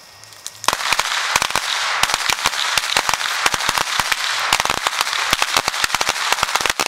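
Firecrackers going off in a rapid, uneven chain of sharp bangs that starts a little under a second in and keeps going without a break.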